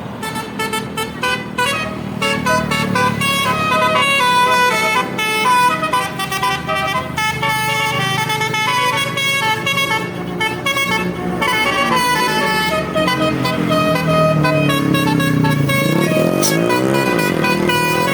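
Indonesian bus telolet horn, a basuri-style multi-note musical horn, playing a quick melody of stepped notes over a running engine. From about 15 seconds in, a lower tone sweeps up and down repeatedly.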